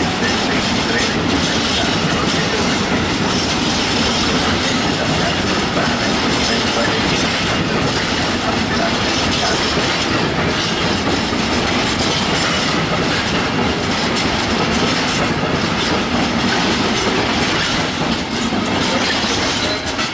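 A freight train's wagons, a mix of flat wagons and open box wagons, rolling past, with the wheels making a steady, continuous rumble on the rails.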